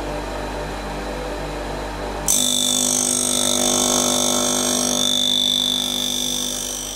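Bernardo SBS 700 saw-blade sharpener's motor running with a steady hum. About two seconds in, its diamond wheel starts grinding a carbide-tipped tooth of a circular saw blade with a shrill, high-pitched screech that fades near the end.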